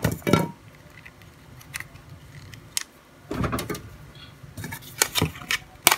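Hands handling the plastic body and detached back cover of an old Nokia mobile phone: scattered light clicks and knocks of plastic, with a longer scrape about halfway through.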